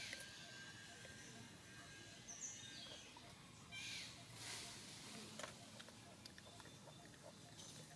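Faint outdoor ambience with a few short, high bird chirps and a couple of soft, brief hissing noises, one at the start and one about four seconds in.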